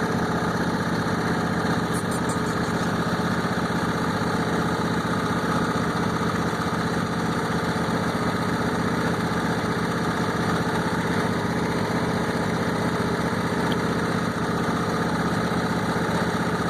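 Riding lawnmower's engine running steadily at an even speed.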